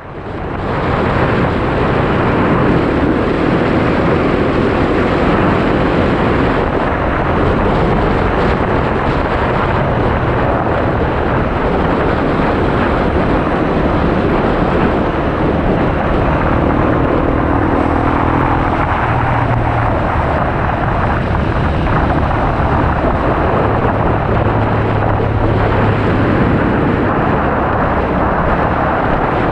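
Honda XR250 motard's single-cylinder engine running while the bike is ridden, mixed with heavy wind rush on the onboard microphone; the engine note shifts in pitch now and then.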